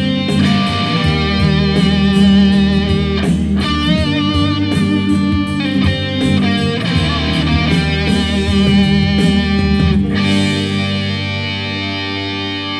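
Electric guitar playing a melodic piece of sustained, ringing notes with a steady low end beneath. About ten seconds in the low end stops and a final chord rings out, slowly fading.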